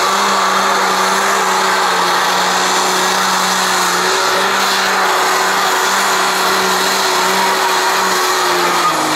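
Ford 8830 Super Stock pulling tractor's methanol-fuelled engine at full throttle under load while dragging the weight sled: a loud, steady, unchanging-pitch engine sound with a hard hiss on top. It cuts off abruptly near the end.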